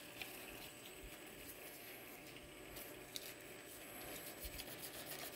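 Faint handling noises of gloved hands working a Bosch diesel injector fitted with a plastic-wrapped digital dial gauge, with a few light clicks.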